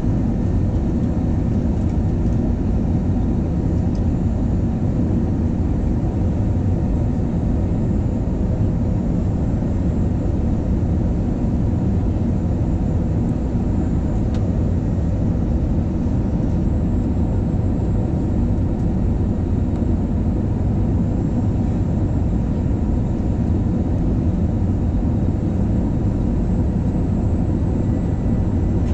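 Steady cabin noise of an Airbus A320-family airliner in flight, heard from a window seat over the wing: the even rush of turbofan engines and airflow, heaviest in the low end, with faint steady tones riding on top.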